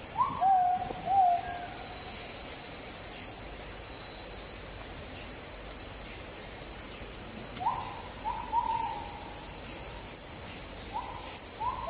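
Insects trilling steadily at a high pitch, with a bird giving short, clear calls in three bouts: near the start, in the middle and near the end.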